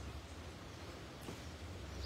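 Quiet background with a steady low hum and a single faint click a little past the middle.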